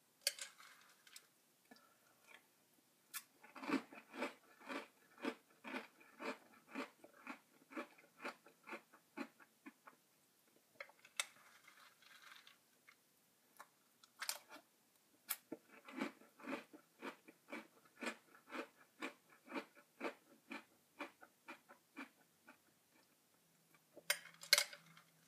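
Close-up crunching of Lucky Charms cereal being chewed, in two long runs of steady chewing at about two chews a second. Sharp clinks of a metal spoon against the bowl come now and then, the loudest near the end.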